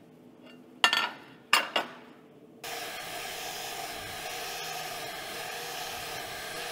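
Two sharp metal clanks as the steel plate is set on the steel welding table. Then an angle grinder with a flap disc comes in abruptly about two and a half seconds in and runs steadily, grinding the mill scale off the face of the steel base plate.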